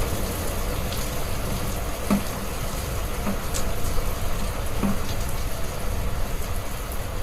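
Heavy rain falling steadily over a deep low rumble, with a few louder individual drops or drips standing out, about four times across the stretch.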